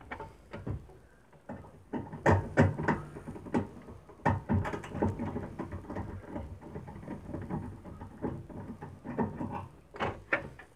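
Irregular clicks, taps and knocks of a screwdriver and hands working on the magnetron and metal chassis of an opened microwave oven as the magnetron is unscrewed and worked loose. The sharpest knocks come about two to four seconds in.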